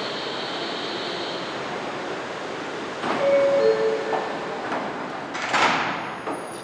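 R179 subway train's door-closing chime, two short tones stepping down in pitch, then about two seconds later the doors sliding shut with a hiss, over the steady hum of the train standing at the platform.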